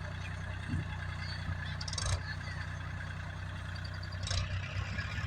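A vehicle engine idling steadily, with a low even hum and two brief sharp knocks, about two and four seconds in.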